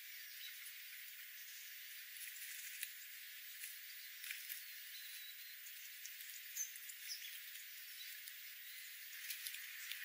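Faint steady hiss with scattered light ticks and a few brief high chirps, from birds pecking at birdseed on the ground.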